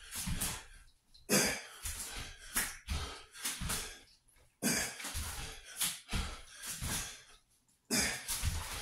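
A man breathing hard in forceful, cough-like exhalations while doing burpees, with dull thuds as his hands and feet land on the exercise mat. The breaths come in repeated bursts with short pauses between them.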